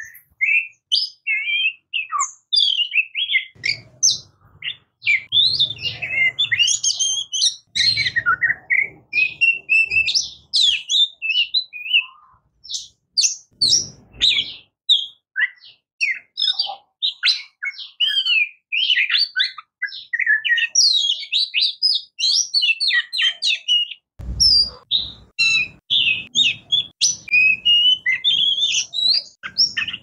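Oriental magpie robin singing a long, nearly unbroken song of quick, varied high whistled notes that glide up and down, with only brief pauses. A faint low rumble comes and goes underneath.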